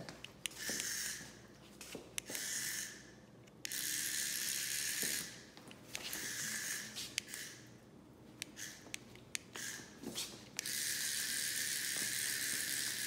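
Small electric motor of a remote-control toy cockroach running in several stop-start bursts as it is driven, with short clicks in the gaps.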